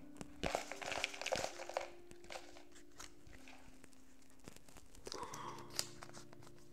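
A folded paper slip crinkling as it is handled and unfolded, with a burst of rustling from about half a second to two seconds in and another shorter one around five to six seconds.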